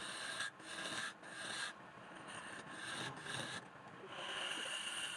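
Wood being worked on a lathe, with a tool scraping and rasping against the spinning piece in uneven strokes that break off briefly every half second or so.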